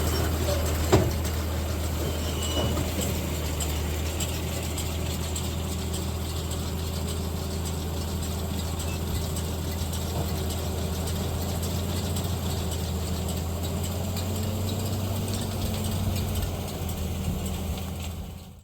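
Farm tractor engine running steadily with mechanical clatter from the machinery, and one sharp click about a second in. The sound fades out near the end.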